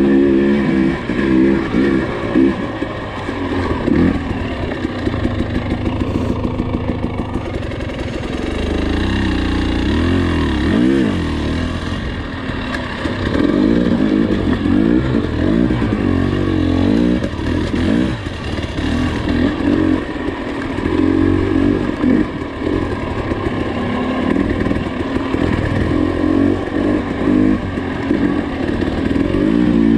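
Husqvarna TE300i two-stroke single-cylinder dirt bike engine, ridden on a trail, its pitch rising and falling again and again as the throttle is opened and closed.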